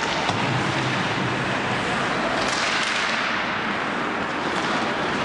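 Steady background noise of a hockey game in a rink, with a few faint knocks.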